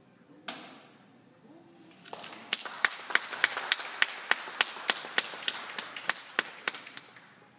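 Audience applauding, with one nearby person clapping steadily about three times a second; it starts about two seconds in and fades near the end. A short sharp sound comes about half a second in.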